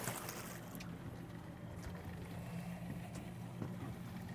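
Boat engine idling with a steady low hum under water and wind noise, with a brief splash right at the start as the weighted deep-drop rig goes into the water.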